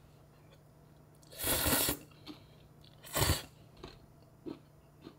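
Close-up eating sounds of a person eating noodles and kimchi: two loud mouth noises about a second and a half apart, followed by a few soft clicks.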